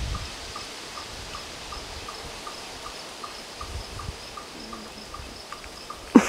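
Woodland campsite ambience: a faint even hiss with a small creature's short high peep repeating steadily about three times a second. A brief loud rising sound comes near the end.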